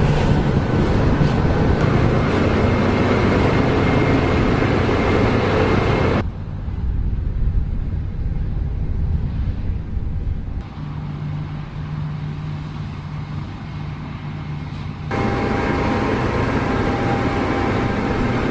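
Case IH AF10 combine harvester running in wheat, a steady engine and threshing drone with a faint whine. The sound changes abruptly between clips: loud for about the first six seconds, quieter through the middle, and loud again for the last few seconds.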